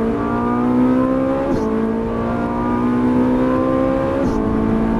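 Ferrari 458 Italia's V8 engine accelerating, heard from inside the cabin: its pitch climbs steadily and drops quickly at two upshifts, about a second and a half in and again about four seconds in.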